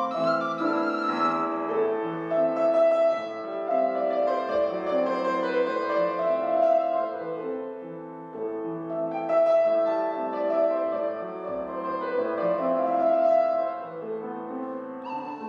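Grand piano playing a solo passage of the accompaniment, sustained chords and melody.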